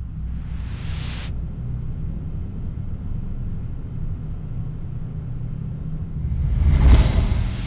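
Low, steady rumbling drone from the film's sound design, with a soft whoosh about a second in and a louder whoosh that swells up and fades near the end, a transition effect between scenes.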